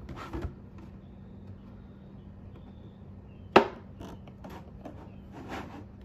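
Scissor point working against a plastic gallon milk jug to pierce it: a few light ticks, then one sharp loud snap about three and a half seconds in as the plastic gives, followed by lighter scratchy ticks.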